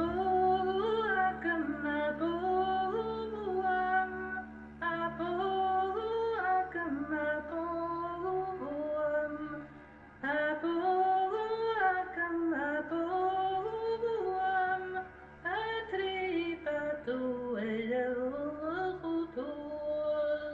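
A woman singing a slow melody in phrases of a few seconds each, over a faint steady low held note. It fades out at the end.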